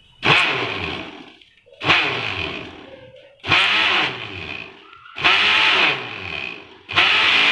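Electric mixer grinder's small dry-grinding jar run in five short pulses, about one every 1.7 seconds, grinding dried cornflour-mixture flakes into powder. Each time the motor whirs up sharply, then winds down with falling pitch.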